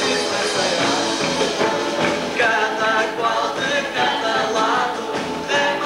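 Carnival march song playing: a voice singing over instrumental backing.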